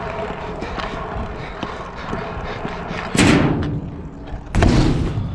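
Stunt scooter's wheels rolling on concrete with a low rumble, then two loud impacts about a second and a half apart: the pop off the ramp and the landing of a heel-whip transfer.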